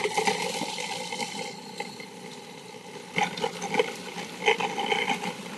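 Food processor motor switching on and running steadily while grinding raw salmon. From about three seconds in, salmon chunks dropped through the feed tube knock several times as the blade catches them.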